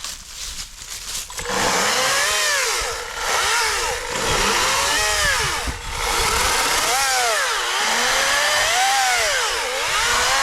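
Atlas 40-volt brushless battery chainsaw cutting wood. It starts about a second and a half in, its whine repeatedly dropping in pitch and recovering as the chain bites into the wood and comes free.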